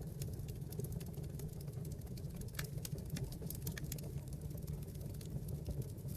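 Wood fire burning in a fireplace: irregular crackling with scattered sharp pops of burning logs over a steady low rumble of the flames.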